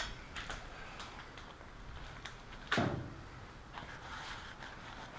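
Scattered handling knocks and clicks as a funnel is set up at the engine's oil filler, with one louder knock a little past halfway.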